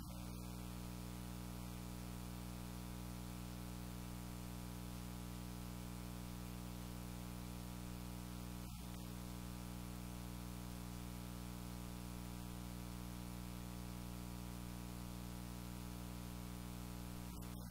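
Steady electrical mains hum with a row of even overtones over a constant hiss, with no other sound.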